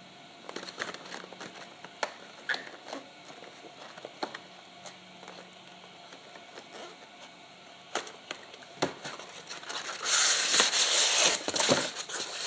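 Packaging being handled while a bobblehead is unwrapped: scattered light clicks and rustles, then from about ten seconds in loud crinkling and tearing of the wrapping.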